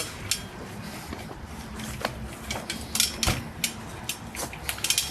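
A string of irregular sharp clicks and clinks, a dozen or so, some louder than others, over a faint steady hum.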